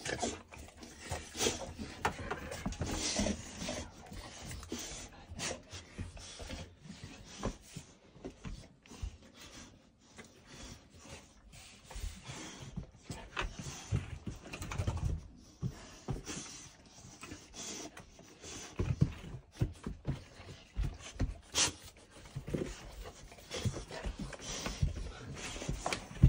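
Young Cane Corso dogs panting, with irregular clicks and scuffles as their paws and claws move on a rubber mat.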